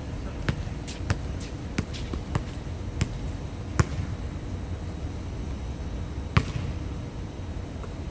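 Basketball bouncing on an outdoor court, a string of dribbles about every half second over the first few seconds, then two louder single thuds, with a steady low rumble behind.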